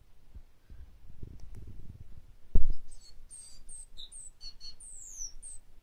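Great tit giving a quick run of short, high chirps over about two and a half seconds, one of them a longer falling note, after a single loud thump about two and a half seconds in.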